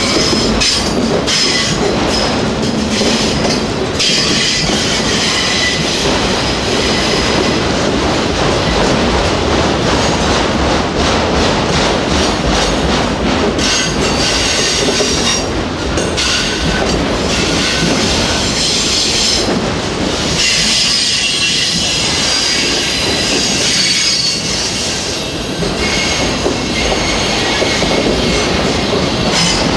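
Autorack freight cars rolling past close by, with a steady rumble of steel wheels on rail and high wheel squeal that comes and goes.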